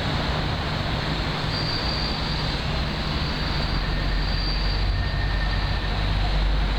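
Steady rushing outdoor noise with a thin, high metallic squeal of rail wheels coming and going from about a second and a half in, and a low rumble building near the end.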